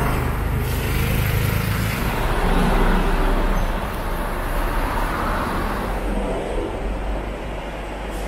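A vehicle engine running, with a steady rush of traffic-like noise and a low rumble.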